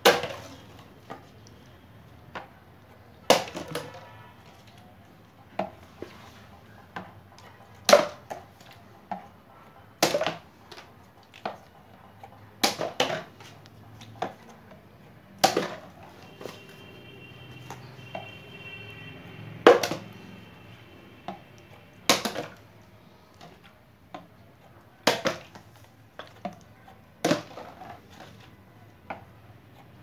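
Partly filled plastic water bottle being flipped again and again, each landing a sharp knock as it hits the Rubik's cube, mat and floor and topples. Loud landings come about every two to three seconds, with smaller knocks between.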